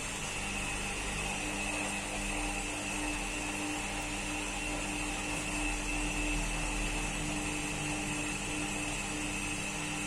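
IFB washing machine spinning, its drum motor running with a steady high whine over a lower hum; a new steady tone sets in about a second and a half in as the spin settles.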